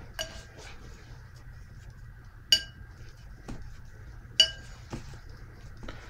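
Paintbrush clinking against hard watercolour palette wells and dishware: three short ringing clinks, the loudest about halfway and about two-thirds of the way through. Softer taps and faint brush scrubbing fall between them as paint is mixed.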